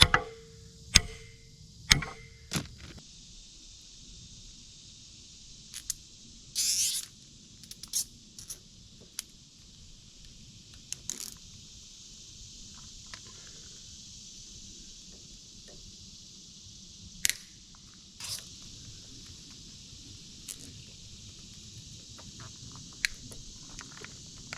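Hand tools working a metal hydraulic fitting: a few ringing metal strikes about once a second near the start, then scattered clicks and taps over a steady high hiss.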